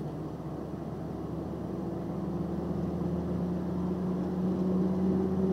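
Truck engine and road noise heard from inside the cab while driving: a steady hum whose pitch steps up about two seconds in and grows slightly louder, as the truck picks up speed.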